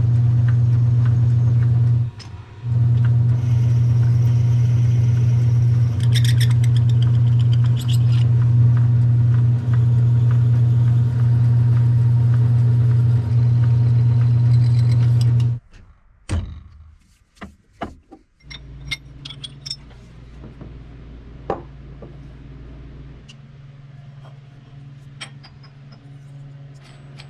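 Metal lathe running with a loud, steady low hum while spot drilling and reaming a cast crankcase bore for the crankshaft, with some light high cutting noise a few seconds in. The hum cuts off abruptly a little past halfway, followed by a few sharp clicks and knocks over a much quieter steady machine hum.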